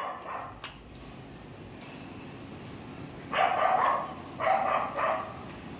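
A dog barking three times in quick succession, starting a little past halfway through, over low background noise.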